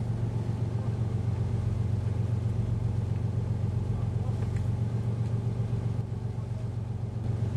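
Fishing boat's engine running steadily, a continuous low drone.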